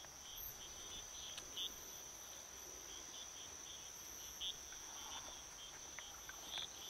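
Night-time insect chorus, typical of crickets: one steady high-pitched trill throughout, with short chirps repeating over it.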